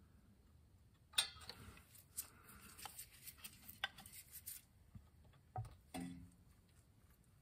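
Light, irregular taps and knocks of a hammer on a pin punch at a classic Mini's gearbox selector rod, drifting out the pin that holds the rod's collar. The loudest tap comes about a second in; the others are fainter and scattered.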